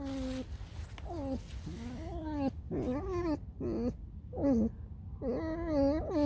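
A pet fox squeaking: a run of short, whiny calls, each bending up and down in pitch, with a longer call near the end.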